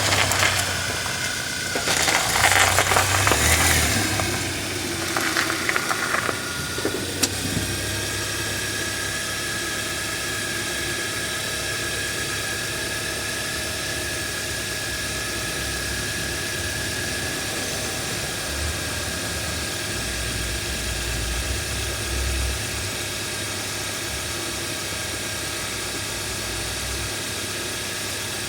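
Car driving on the road, steady engine and road noise, with loud rattling stretches in the first six seconds and one sharp knock about seven seconds in. The car is being road-tested for a front-end clunk.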